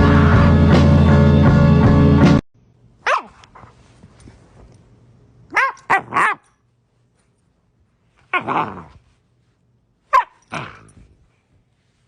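Background music cuts off suddenly about two seconds in. Then a dog barks about six times, single short barks spaced a second or more apart, each dropping in pitch.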